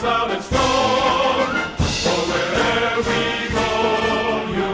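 Background music with sung voices holding notes.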